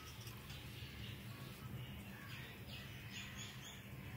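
Faint bird chirps, several short high calls in the second half, over a low steady hum.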